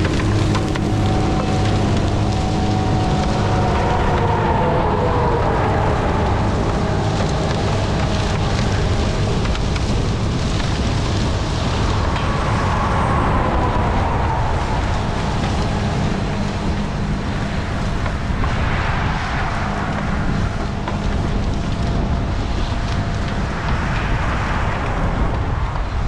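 Multirotor drone motors and propellers whirring steadily with wind rush, the whine sliding up and down in pitch a couple of times as the throttle changes.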